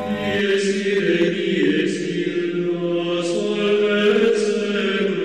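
Intro music of slow choral chanting: held sung notes that step from one pitch to the next. A bell-like tone carries over from before and stops about half a second in.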